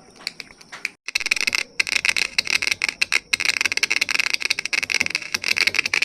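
Dense, rapid, irregular clicking and crackling over a steady hiss, starting about a second in.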